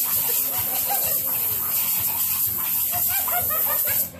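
Compressed air hissing steadily from an air blow gun on a compressor hose, cutting off about four seconds in. Over it, a boxer dog makes a string of short, whiny play vocalizations as it goes after the air stream.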